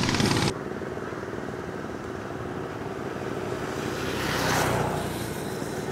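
Steady outdoor background noise, with a passing motor vehicle swelling and fading about four to five seconds in.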